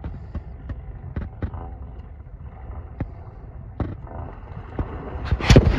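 A 420 ATV's engine running low and steady while the quad sits submerged up to the seat in pond water, with scattered sharp clicks and a loud rush of noise near the end.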